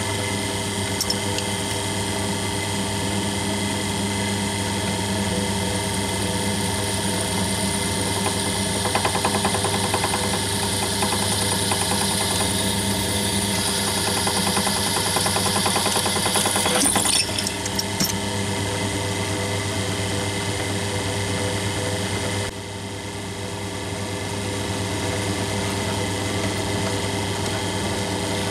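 Bench drill running with a 22 mm carbide-tipped (TCT) hole saw cutting through 5 mm angle iron: a steady motor hum under a harsher metal-cutting noise that grows louder through the middle. A brief rattle comes about two-thirds of the way in, and then the sound drops abruptly to a slightly quieter steady hum.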